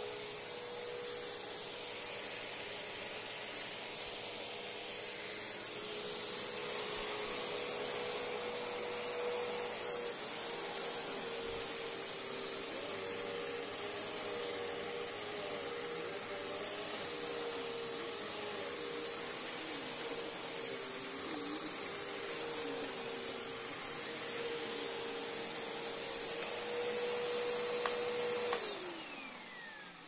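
Upright vacuum cleaner running steadily as it is pushed over a rug. Near the end it is switched off and its motor whine falls in pitch as it spins down.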